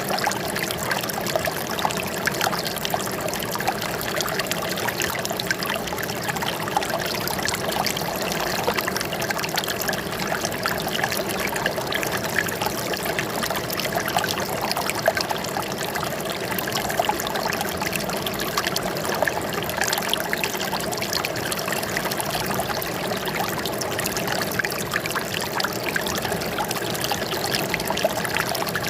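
Running water trickling and splashing steadily, with a dense patter of small drops.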